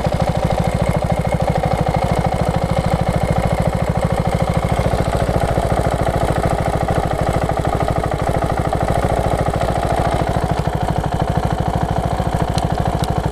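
KTM 690 SM's LC4 single-cylinder engine idling steadily with a ticking, which the owner suspects is the cam chain tensioner and which comes only once the engine is warm.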